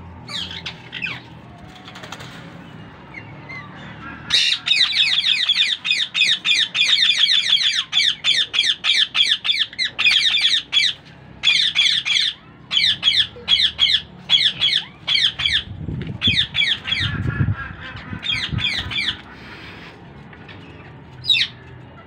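Indian ringneck parakeets squawking: loud runs of rapid, repeated harsh calls, several a second, starting about four seconds in and broken by short pauses, with a few single calls near the start and end.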